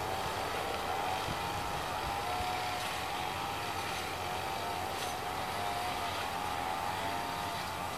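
Distant airliner's jet engines on landing approach: a steady rush of jet noise with a faint whine that wavers slowly in pitch.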